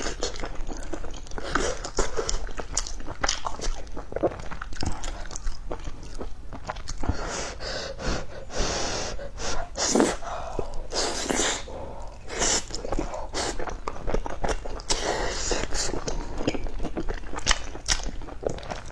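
Close-miked eating of crispy fried chicken: crunchy bites and wet chewing, with many short crackles. Several longer breathy, hissing bursts come in the middle.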